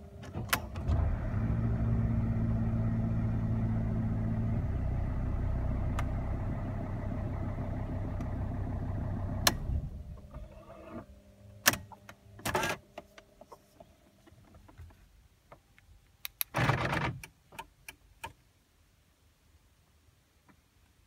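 Mercedes-Benz W211 E270 CDI's five-cylinder diesel engine started about half a second in, idling steadily, then switched off just under ten seconds in. A few clicks and a short rustle follow.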